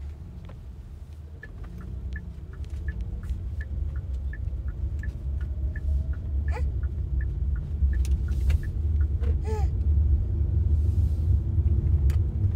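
Car road and engine rumble heard inside a moving taxi's cabin, growing steadily louder. A light, regular ticking, about three a second, runs over it for several seconds.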